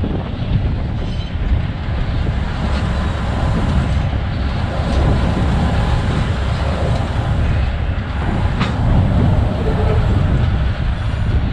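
GE 80-ton diesel-electric switcher locomotive running along the track, heard from its cab: a steady low engine rumble mixed with wheel-on-rail noise, with one sharp click about two thirds of the way through.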